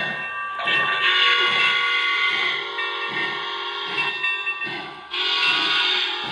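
Lionel Legacy Santa Fe Blue Goose 4-8-4 O-gauge locomotive's onboard sound system playing steady steam chuffs, about two a second, as the engine pulls away. A long steam whistle blows over the chuffing, breaks off about five seconds in and sounds again at once.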